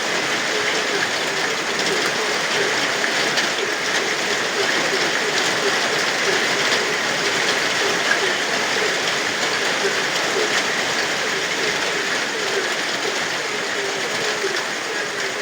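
Steady rain falling, with frogs croaking in a continuous chorus of short, rapidly repeated notes.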